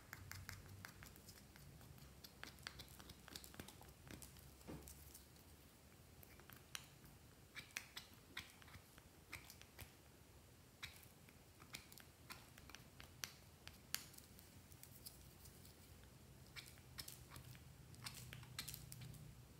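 Faint, irregular scratching and small clicks of a thin metal pick tool scraping wax off crayon tips, over a low steady room hum.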